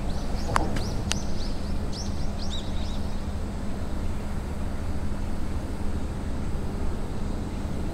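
Steady low rumble of distant road traffic, with a bird giving a quick run of short high chirps over the first three seconds. A couple of sharp clicks in the first second or so.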